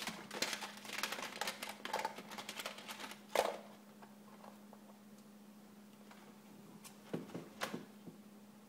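A cat clambering into an open drawer of cloth and papers: a quick run of rustles, scratches and clicks from its paws and claws, with a sharper knock about three and a half seconds in, then a few more scrapes near the end.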